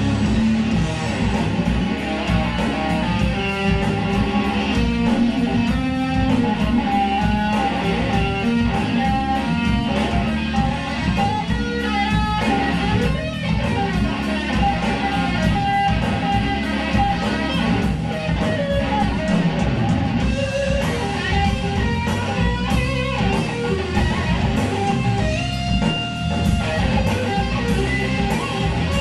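Live blues-rock trio: a Stratocaster-style electric guitar plays an instrumental lead passage over bass guitar and a drum kit, with cymbals keeping a steady beat.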